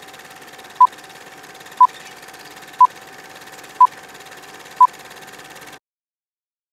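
Film-leader countdown sound effect: a short, high beep once a second, five times, over a steady hiss like old film running through a projector. The hiss cuts off suddenly about a second before the end, leaving silence.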